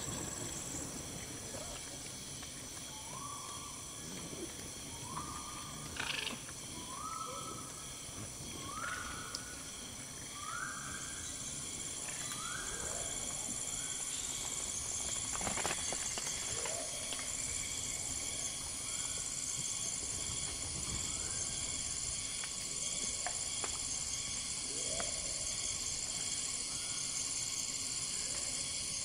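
Tropical forest ambience: a steady high insect drone, stronger in the second half. Over it, an animal gives a short rising call over and over, about every second and a half for some ten seconds, then a few scattered, fainter ones. Two sharp knocks are heard, one about six seconds in and one about fifteen.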